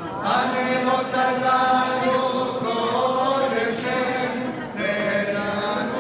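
Voices chanting a Hanukkah candle-lighting song in long held notes that glide between pitches, with a short break about three-quarters of the way through.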